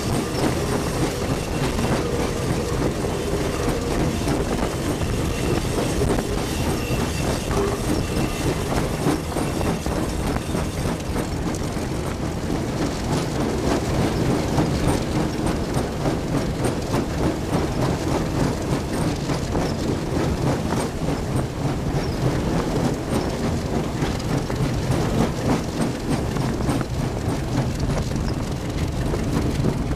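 Ferronor DT12002 diesel locomotive running along the line, heard from on board: a steady low engine drone under the continuous clatter of the wheels over the rails.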